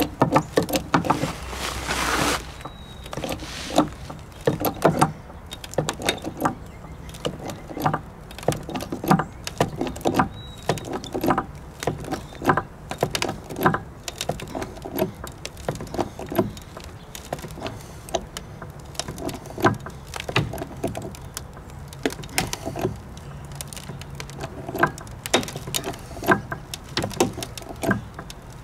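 Hydraulic bottle jack being pumped by hand, its handle strokes making a run of clicks and clunks about one or two a second as it lifts a house post under heavy load. A short rush of noise comes about two seconds in.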